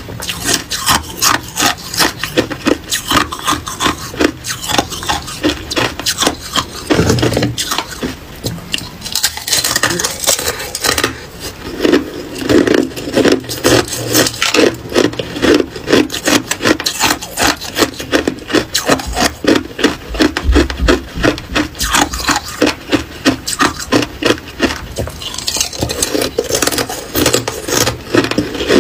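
Hard ice being chewed close to the microphone: a fast, regular run of loud crunches, about three a second.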